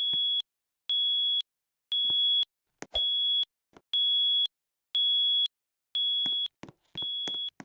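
A voice-evacuation fire alarm system sounding its high-pitched electronic alarm tone, under test. The tone beeps evenly, about half a second on and half a second off, roughly once a second.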